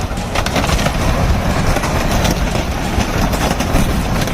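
Heavy machinery engine running loud and steady, with wood crunching and splintering under it.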